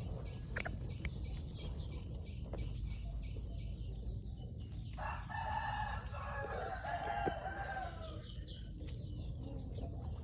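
Bantam rooster crowing once, a single long call of about three seconds starting about five seconds in. Short high chirps come and go throughout over a steady low background rumble.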